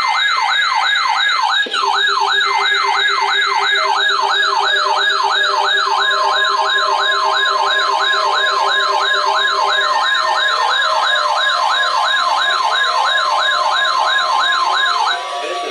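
Weather radio receivers' alert alarms going off, set off by the weekly warning alarm test: a loud, fast warbling siren of about three sweeps a second that stops shortly before the end. A lower beeping tone runs under the first part, and a steady higher tone joins about six seconds in.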